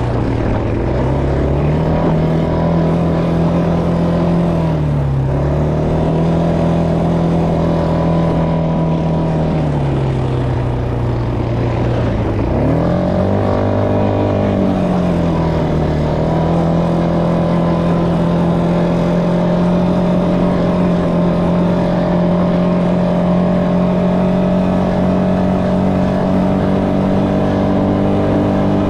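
ATV engine running under load on a dirt trail. It eases off briefly about five seconds in, drops lower for a couple of seconds around the middle, then revs back up and holds a steady cruising pitch.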